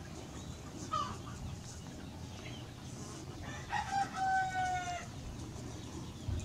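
A rooster crowing once, its call ending in a long, slowly falling held note. A brief high chirp comes about a second earlier.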